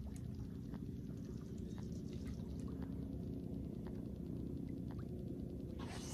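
Steady low background rumble with faint scattered ticks. Near the end comes a spinning-rod cast: a quick swish as fishing line runs off the reel, falling in pitch.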